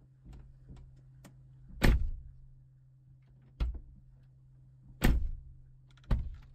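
Four sharp knocks, the loudest about two seconds in, with lighter clicks between them, as hard parts are handled and pressed into place during a car stereo installation. A steady low hum runs underneath.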